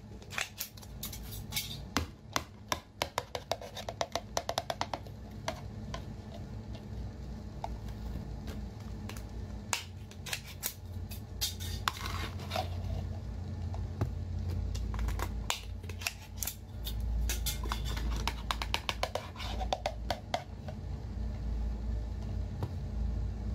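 Metal screw lid being twisted off a glass jar, with a rapid run of clicks and scrapes. Then food and sauce are tipped and shaken out of the jar onto a plate, with more clusters of clicks and scraping and a low rumble of handling.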